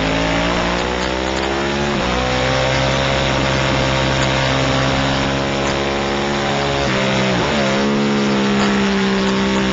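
Ducati race motorcycle engine at racing speed under the onboard camera, with wind rushing over the microphone. The revs climb and drop sharply on an upshift about two seconds in, then hold high through a long lean. Near the end the revs dip sharply and pick up again.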